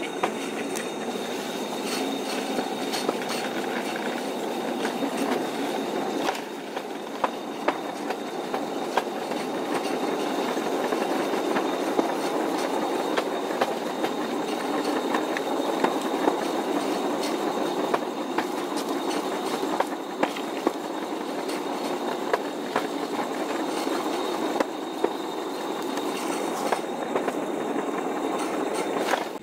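Steel wheels rolling along old jointed railway track: a steady rattling rumble with sharp clicks as the wheels cross rail joints, and a thin steady high whine throughout. Briefly quieter about six seconds in.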